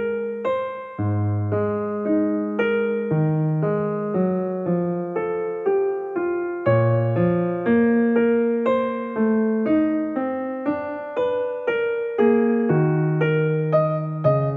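Background music played on an electric piano, a melody of single notes struck about twice a second.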